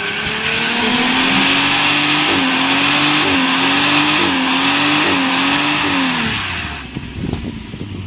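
Big-block V8 car engine revving hard while the tires squeal, the engine pitch climbing and then dipping briefly about once a second. Near the end the tire squeal fades and the engine drops to a low rumble.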